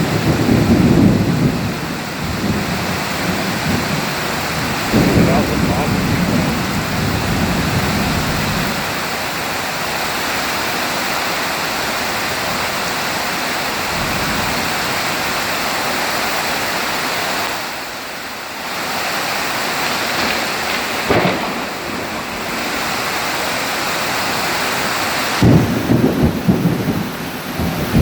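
Heavy rain pouring steadily during a thunderstorm, with low rumbles of thunder at the start, about five seconds in and again near the end.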